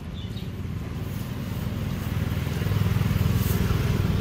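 A motor vehicle engine running, growing louder over the first three seconds and then holding.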